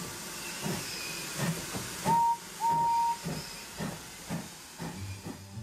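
Steam locomotive chuffing steadily under a hiss of steam, with two whistle toots about two seconds in, a short one followed by a longer one.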